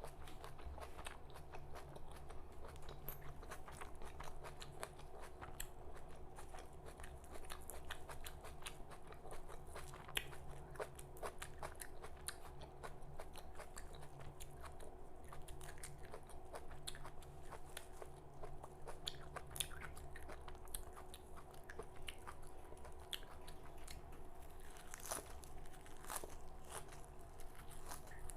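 Close-up crunching and chewing of raw red amaranth (lal chaulai) leaves and stems: many small irregular crackles and bites throughout, over a faint steady hum.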